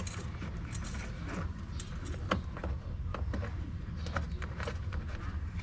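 Light, irregular clicks and taps of a plastic mud guard being handled and pressed into place against a car's front wheel arch, over a steady low hum.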